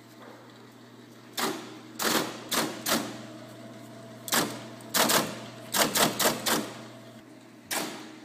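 IBM 026 keypunch punching a card as its keys are struck: about a dozen sharp mechanical clacks in short, irregular runs, starting about a second and a half in, over a steady low hum.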